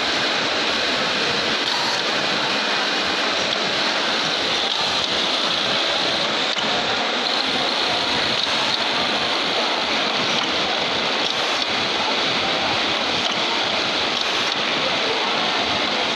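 Steady, even din of garment-factory sewing machinery running, with an automatic back-pocket hemming machine working.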